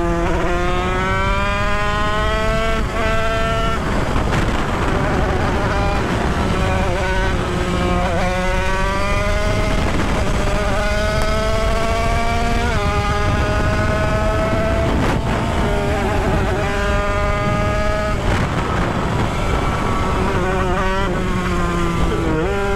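Tuned Derbi two-stroke supermotard engine revving hard under way: a high, buzzing whine that climbs in pitch for a few seconds, then drops back at each gear change or throttle lift, several times over, with wind noise.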